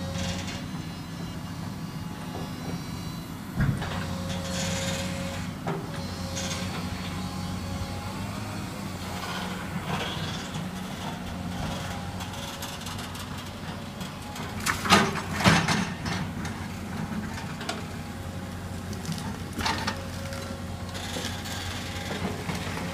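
House demolition by an excavator: a steady low engine hum with a few crashes and cracks of wood debris, the loudest pair about fifteen seconds in.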